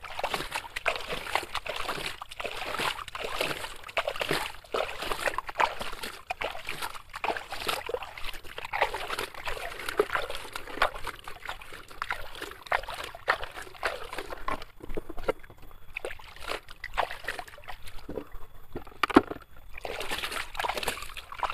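Water sloshing and splashing in irregular bursts, with trickling, as a toy dump truck is washed by hand.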